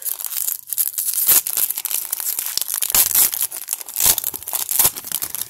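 Foil wrapper of a Topps Update baseball card pack being torn open and crinkled by hand, a steady crackling with many sharp crackles throughout.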